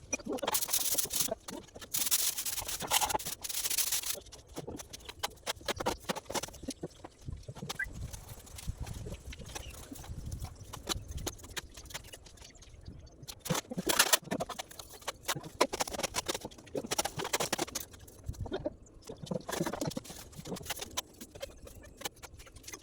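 Trowel scraping and tapping on cement mortar, in irregular bursts of a second or two with short knocks in between.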